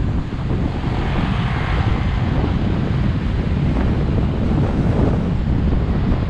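Wind buffeting the microphone of a camera riding on a moving bicycle: a loud, steady low rumble with a hiss that swells about a second in.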